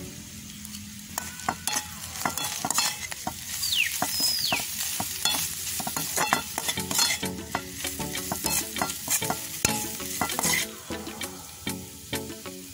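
Spiced fish mixture being stirred and scraped with a spatula in a large metal wok, sizzling as it fries, with a busy run of scrapes and clacks of the spatula against the pan.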